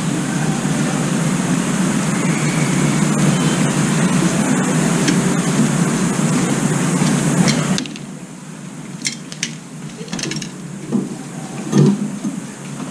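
A loud, steady rushing noise cuts off suddenly about eight seconds in. A few light taps and knocks follow, the loudest near the end, as an Oriental turtle dove steps from the metal feeder tray onto the plastic container and the railing.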